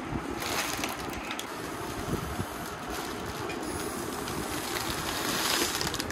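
Steady rushing of air as birthday letter balloons are being inflated, swelling a little louder a few times.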